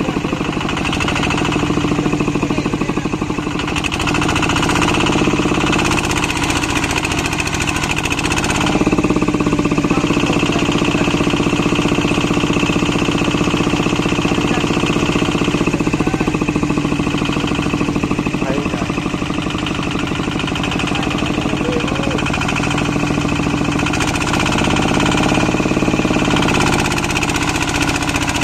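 Single-cylinder Kubota RT diesel of a two-wheel tractor running hard under load, its pitch rising and falling twice as it strains to pull a loaded trailer stuck in mud.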